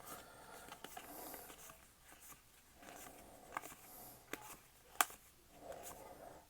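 Faint rustling of Pokémon booster pack wrappers and trading cards being handled, with three sharp clicks a little past halfway, the last the loudest.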